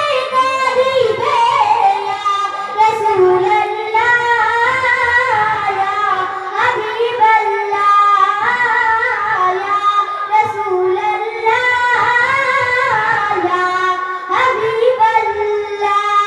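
A young girl singing a Bengali Islamic devotional song (gojol) into a microphone, with long held notes and ornamented glides between pitches.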